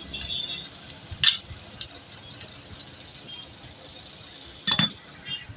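Two sharp knocks from hand tools working on the motorcycle's oil filter nut as it is refitted: a short one about a second in and a louder one near the end.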